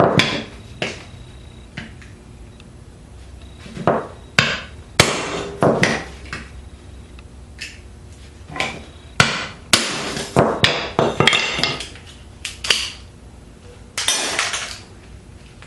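Hammer blows on a cold chisel set on the weld of a small microwave transformer's steel core, breaking the laminations apart: irregular sharp metal-on-metal strikes, some in quick runs of two or three, with brief ringing.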